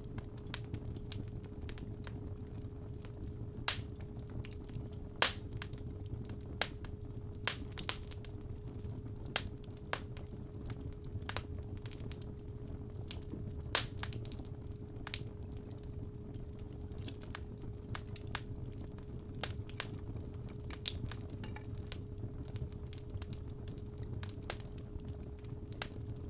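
Fireplace fire crackling, with irregular sharp pops over a low rumble, the loudest pops a little under 4 s, about 5 s and about 14 s in. A steady 417 Hz tone runs beneath it throughout.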